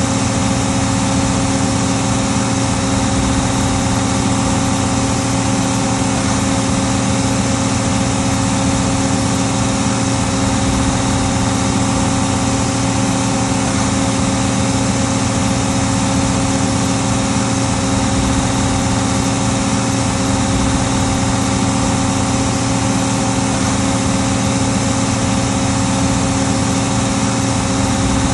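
Case 1570 tractor's six-cylinder turbocharged diesel engine running steadily under load while pulling a five-bottom plow.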